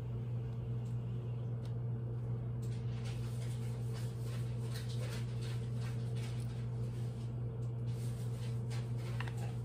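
Steady low machine hum holding one even pitch, with a few faint light clicks over it.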